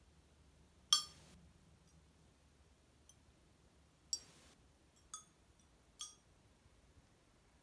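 Marlborough handmade crackle-glazed ceramic tiles pinging on their own as the glaze cracks. There are about four sharp, ringing tinks like wind chimes, spaced irregularly, the loudest about a second in, with a couple of fainter ticks between them.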